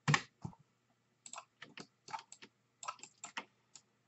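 Computer keyboard and mouse clicking: about a dozen short, irregular clicks and key taps, a few a second.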